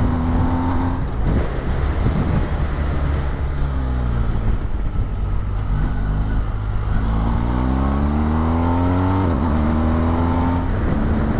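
BMW R 1250 GS boxer-twin engine under way with wind rush on the microphone. Its note falls as the bike slows for a bend about four seconds in, climbs as the rider accelerates out, and drops suddenly with a gear change about nine seconds in, then runs steady.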